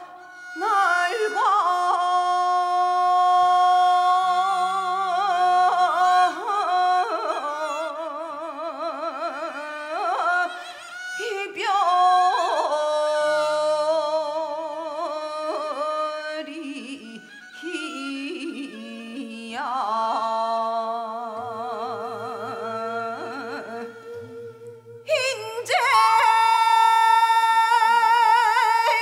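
Female singer performing Gyeonggi sori, the folk song tradition of the Seoul–Gyeonggi region, in long held notes with a wide, wavering vibrato. Near the end she rises to a louder, higher sustained note.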